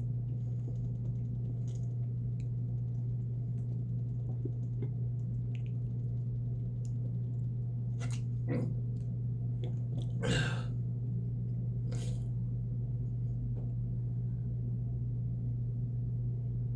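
A steady low hum runs throughout, broken by a few brief noisy sounds about eight seconds in, again just after ten seconds, and once more about twelve seconds in.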